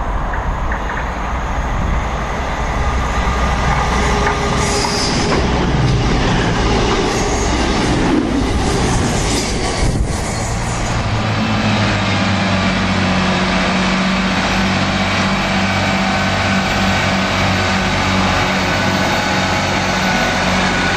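A train passing along the track with rumbling wheel-on-rail noise and some squeal. From about halfway, a diesel multiple unit moves slowly alongside the platform, its underfloor engines giving a steady low hum.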